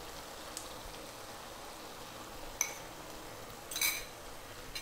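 Faint steady hiss of a simmering pan under a few light clinks of a fork against a ceramic bowl: a sharp one about two and a half seconds in and a ringing one a second later.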